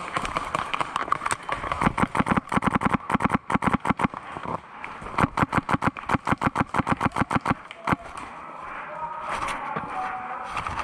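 Airsoft gun firing two long strings of rapid shots, each lasting a couple of seconds, with a few scattered shots before them and a single shot near the end of the firing.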